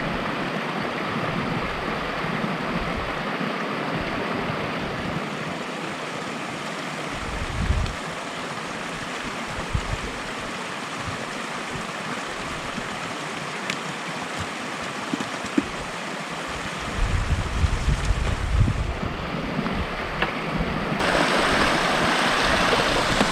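Wind buffeting the microphone in uneven low gusts over a steady rushing hiss, which grows louder near the end.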